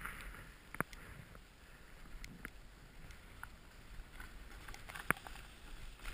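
Faint wind and snow hiss on a snowboarder's helmet camera, with a few light knocks and taps. The sharpest knocks come about a second in and about five seconds in.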